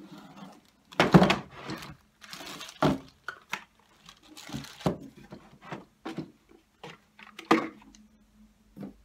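Medicine boxes, bottles and packets being set and dropped into a wooden crate: a series of knocks and thuds, the loudest about a second in, with short rustles of plastic packaging between.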